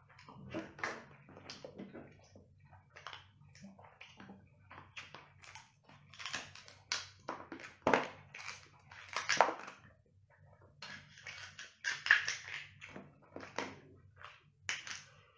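Close-up eating of cooked king crab: irregular cracking and snapping of crab-leg shell and wet chewing, with a few sharp, loud cracks about eight, nine and twelve seconds in.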